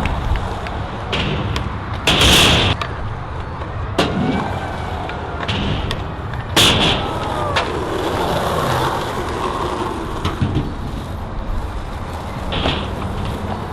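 Skateboard wheels rolling with a steady rumble, broken by several sharp clacks and knocks of the board. The loudest clack comes about two seconds in.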